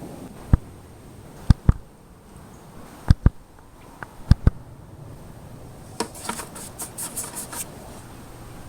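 A series of short, sharp knocks, several in quick pairs, then about a second and a half of rapid light clicking, like hand tools being handled.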